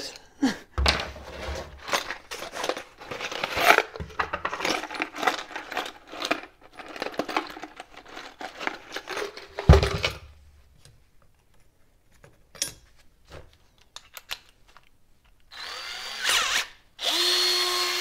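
A cordless drill having a damaged bit swapped out: clicking and clattering of the chuck being worked and drill bits being handled, with one sharp thump about halfway. Near the end the drill runs unloaded with a steady whine for about two seconds, spinning the new bit.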